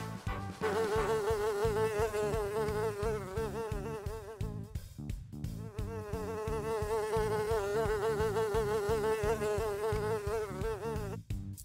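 Housefly buzzing: a steady, wavering hum that drops away briefly about five seconds in and stops just before the end.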